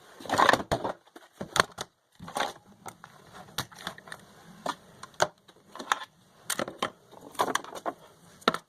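Packaging being handled: irregular crinkling and rustling with sharp clicks and taps, in short bursts.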